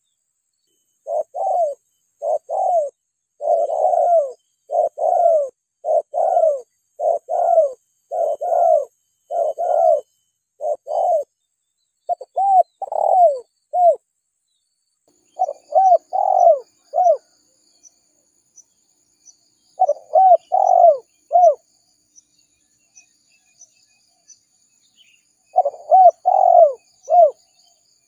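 Spotted dove cooing, a lure-call recording for drawing in wild doves: phrases of rounded coos come almost without a break for the first dozen seconds or so, then in three shorter bouts separated by pauses.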